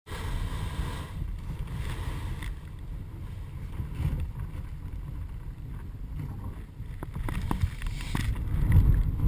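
Low, uneven rumble of wind buffeting a camera microphone, with a few faint knocks late on and growing louder near the end.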